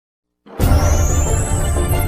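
Intro music starting abruptly about half a second in, with a rising swoosh on top.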